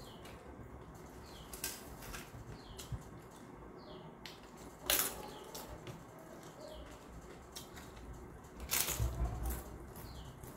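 Close-up eating sounds of chewing rice and papad, with a sharp crunch about five seconds in and a run of crunches near the end as the crisp papad is bitten and chewed.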